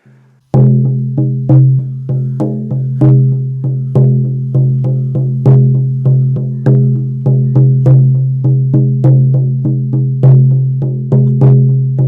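16-inch buffalo-skin shamanic frame drum struck with a firm beater in a steady, even beat starting about half a second in. Each stroke gives a deep booming tone that rings on between the strokes.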